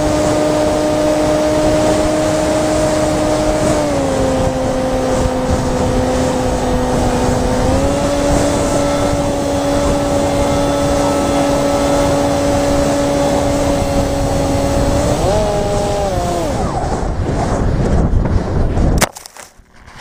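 Electric motor and propeller of an FPV flying wing whining at a steady pitch, with wind rushing over the onboard microphone; the pitch steps down, then up again as the throttle changes. About three seconds before the end the motor winds down, and near the end the wing hits the ground with a sharp thump, after which the sound is much quieter.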